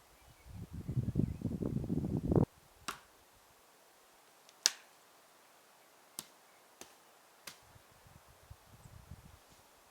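A close rustling, scraping burst lasting about two seconds that stops abruptly, followed by five sharp separate snaps or clicks spread over the next few seconds, the second the loudest, then faint rustling.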